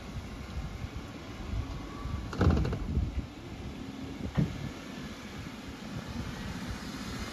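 Lifted Jeep Wrangler crawling slowly through deep dirt ruts, its engine running low. A loud rattling clatter comes about two and a half seconds in, and a single sharp knock follows about two seconds later.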